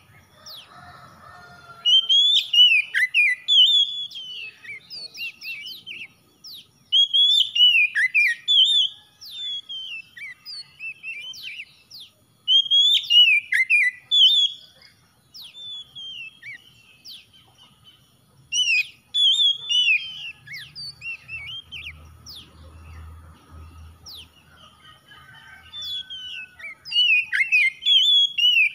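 Oriental magpie-robin singing: repeated bursts of loud, varied whistled phrases with sharp high notes, separated by pauses of a few seconds.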